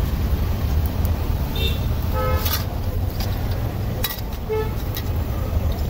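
Roadside traffic: a steady low rumble with short car horn toots, a couple near the middle and another one later, and a few light clicks.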